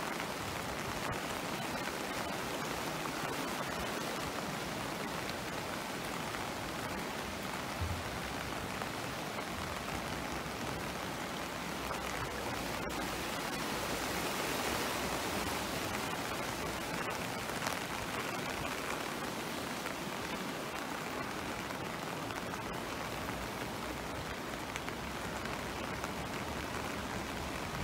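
Steady rushing noise of the flooded Kyll river, brown floodwater running high and fast, swelling slightly about halfway through.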